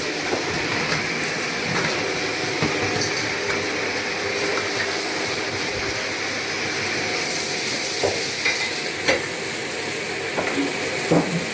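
Shark vacuum cleaner running on a hard floor, sucking up scattered debris that crackles and clicks as it rattles up the nozzle.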